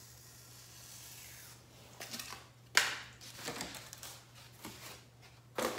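A felt-tip marker scratching faintly across foam board. From about two seconds in, a large foam board sheet is lifted and handled over the cutting mat, scraping and rustling, with a sharp knock just under three seconds in and another near the end.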